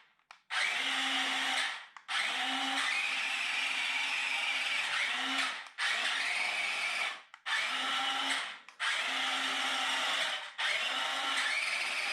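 Electric drive motors and gears of a JJRC Q137 8x8 skid-steer RC vehicle whining in about six bursts of one to three seconds each, with short stops between, the pitch rising as the motors spin up at the start of several bursts.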